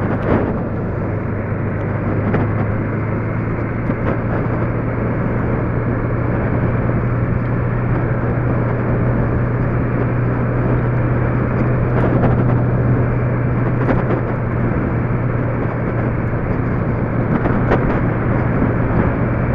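Road vehicle driving at a steady speed: a constant low engine drone under even road and tyre noise, with a few faint knocks or rattles.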